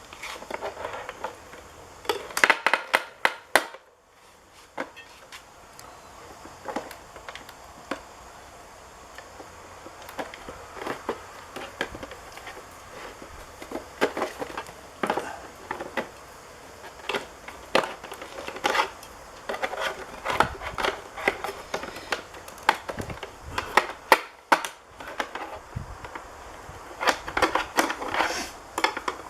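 Irregular clicks, knocks and rattles of hand tools and plastic parts being handled while the door mirror is taken apart, some in quick clusters of clicks.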